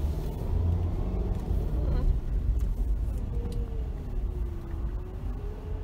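Car engine and tyre rumble heard from inside the cabin as the car climbs a spiral parking-garage ramp, a steady low rumble. A faint drawn-out, slightly wavering tone joins it over the last couple of seconds.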